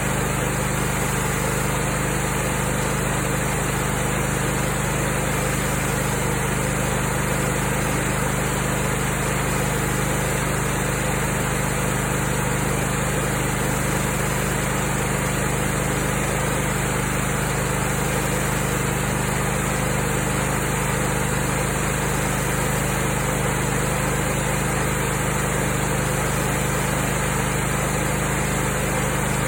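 Brand-new Kohler Command Pro ECV749 EFI air-cooled V-twin engine running at a steady speed on its first run.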